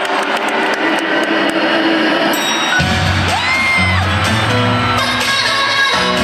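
Live K-pop music played loud through an arena sound system, with singing and the crowd whooping along; the bass and beat come in about three seconds in.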